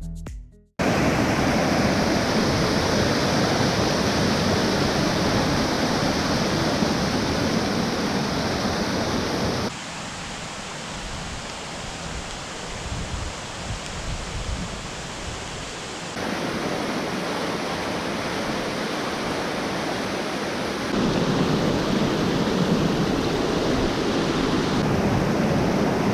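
Waterfall in spate after several days of heavy rain: a steady rush of falling water, with sudden changes in level where takes are cut together, quieter between about ten and sixteen seconds in. A bit of music cuts off just under a second in.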